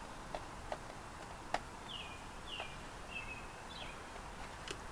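Four short, faint falling chirps from a bird, beginning about two seconds in. Light taps and clicks come from hands on a large subwoofer's cone surround and frame, the sharpest about a second and a half in.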